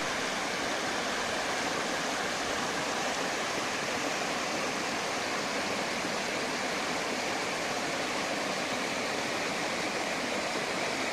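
Steady rush of flowing water from a rain-fed stream, an even hiss at a constant level with no individual splashes standing out.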